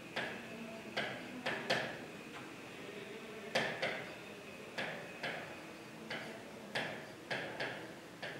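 Marker pen writing on a board: irregular sharp taps and clicks a few times a second as letters are stroked on, with faint short squeaks between them.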